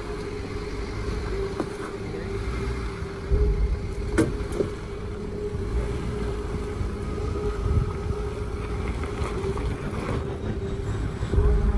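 Jeep Gladiator Rubicon engine running at a low crawl as the truck climbs slowly over rocks, a steady drone. A sharp knock about four seconds in.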